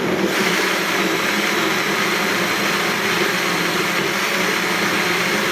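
An old Ramtons electric blender motor running steadily in one short pulse. It switches on abruptly and cuts off near the end, one of the brief on-and-off bursts meant to spare the motor.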